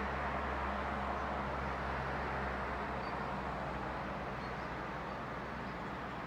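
Steady outdoor ambient noise, an even hiss-like wash with a low hum that fades out about two seconds in.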